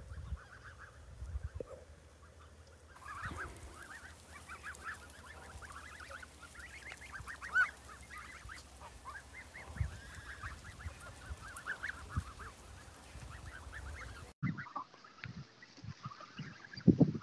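A flock of young white domestic geese calling: many short honks overlapping, growing denser about three seconds in.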